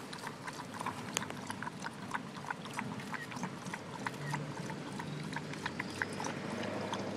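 Dog lapping water from a stainless steel bowl: a quick, irregular run of wet laps, about three or four a second.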